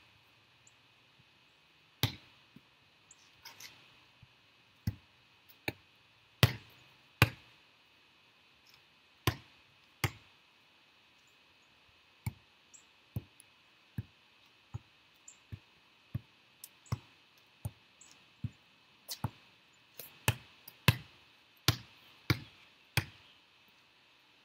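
Volleyball being set and passed over and over: a string of sharp slaps of the ball on hands and forearms, spaced unevenly at first and then coming steadily, about one or two a second, through the second half.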